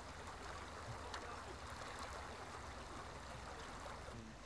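Steady outdoor ambience: an even, soft hiss with a few faint ticks.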